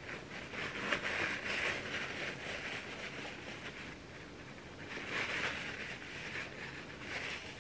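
Crumpled paper towel rustling and crinkling as a bottle is wiped clean, in uneven bursts: a long stretch at the start, then shorter bursts about five and seven seconds in.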